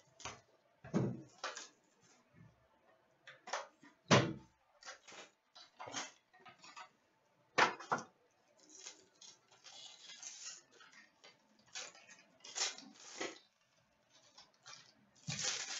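A sealed box of hockey trading cards being opened by hand: scattered taps and clicks of cardboard with crinkling of wrapper, the longest crinkling about nine to ten seconds in.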